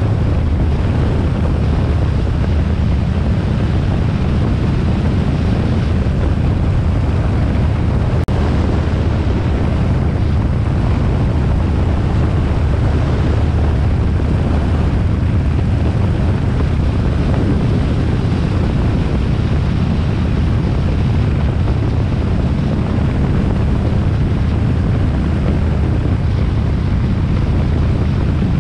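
Harley-Davidson Sportster XL1200R's 1200 cc air-cooled V-twin running steadily at a constant speed under wind rush on the microphone.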